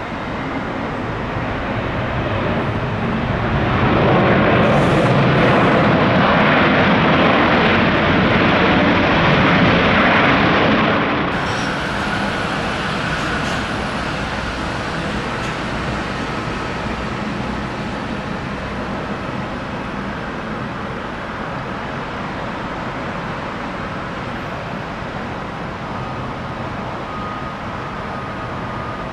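Jet airliner engines passing close: a rushing roar builds over the first few seconds and holds loud, then drops abruptly about eleven seconds in. After that a steadier, quieter jet rumble remains, with a faint whine near the end.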